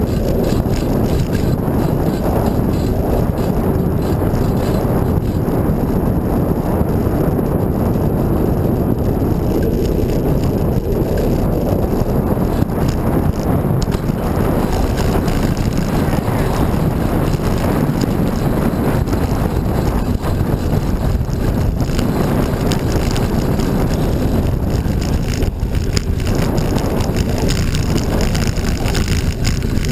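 Steady wind rush buffeting the microphone of a camera moving along a road, mixed with low rumble from the ride over the surface.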